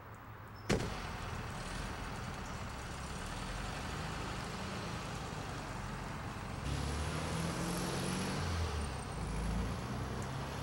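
A car door shuts with a single slam a little under a second in. Then a Volkswagen Beetle's air-cooled flat-four engine runs with a low rumble, getting louder from about seven seconds in as the car drives off.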